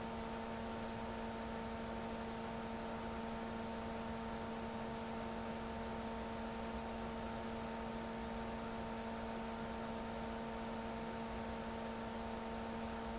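Steady electrical hum with a faint hiss and no other sound: the background noise of the recording.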